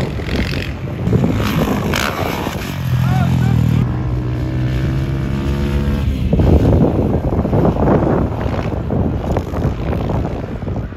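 Dirt bike engines running and revving on a motocross track, the sound rising and falling as riders accelerate over the jumps. A steadier engine note holds for a few seconds in the middle.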